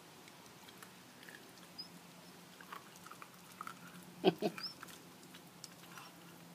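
Puppy chewing on something hard held in its mouth: scattered small crunches and clicks, with two louder crunches a little past the middle.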